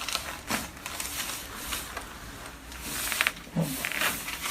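Rustling of clothing and a padded treatment table as a patient is positioned for a chiropractic adjustment, then about three seconds in a quick cluster of joint cracks (cavitation pops) as the adjustment is made.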